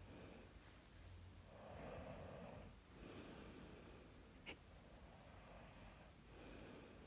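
A sleeping man snoring faintly, with slow breaths in and out, two or three in all, and a short click about halfway through.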